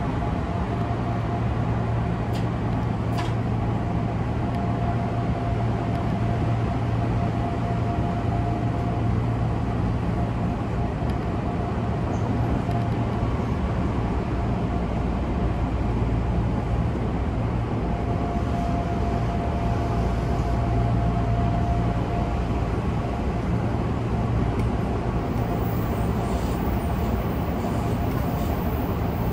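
Odakyu 8000 series electric train running along the line, heard from inside the cab: a steady low rumble of the running gear on the rails. A faint whine fades in and out, and a couple of light clicks come a few seconds in.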